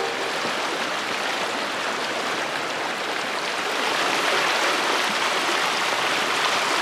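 A shallow river rushing over rocks and rapids, a steady rush of water that gets a little louder about halfway through.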